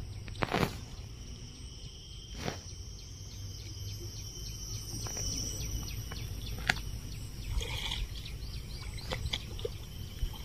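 Outdoor rural ambience: a steady low rumble under a faint, high, steady insect buzz, broken by a few sharp clicks about half a second, two and a half and nearly seven seconds in.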